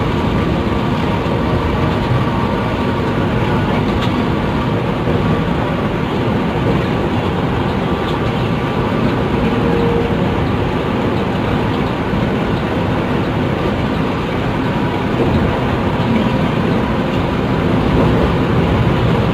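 Steady engine and road noise of a moving long-distance bus, a continuous rumble with no break.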